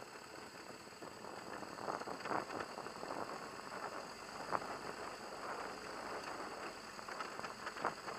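BMW HP2 Enduro motorcycle ridden over a loose gravel track: a muffled, continuous running noise broken by frequent sharp knocks and rattles as the bike goes over stones, the sharpest about halfway and again near the end.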